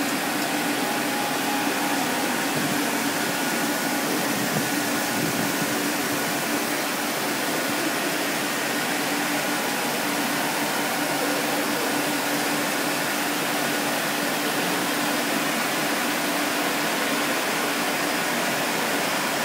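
Rubber knitted-hose production line running: an even machine hiss with a low steady hum under it, from the hose knitting machine and rubber extruder at work.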